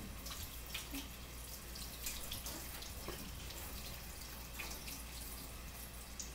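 Kitchen sink tap running while hands are washed and scrubbed under the stream, with scattered small splashes.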